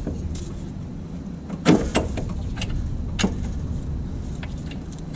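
Hand tools knocking and clinking against metal parts in a truck's engine bay. There are a few sharp knocks, the loudest about a second and a half in and another about three seconds in, over a steady low rumble.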